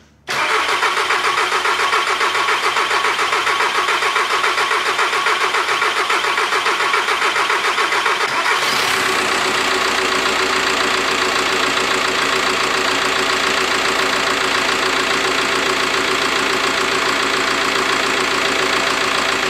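VW Transporter T5's 1.9 TDI four-cylinder diesel engine running at idle, coming in suddenly near the start and its sound shifting slightly about eight and a half seconds in. It is the first run after a cylinder head refit, with a light tapping that the mechanic puts down to the hydraulic lifters still filling with oil.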